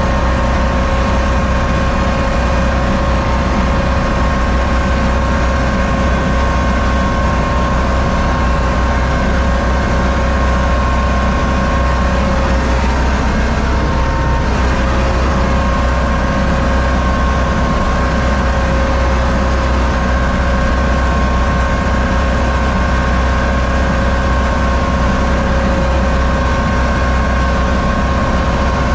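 A U650 tractor's diesel engine running steadily under load while pulling a seed planter, heard from inside the cab. Steady whining tones sit over the low engine drone.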